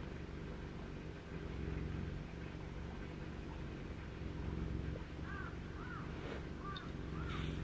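A bird calls four times in quick succession, short rising-and-falling calls, over a low steady hum.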